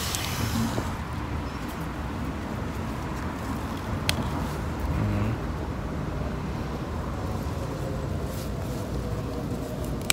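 Steady low background rumble of distant road traffic, with one sharp click about four seconds in.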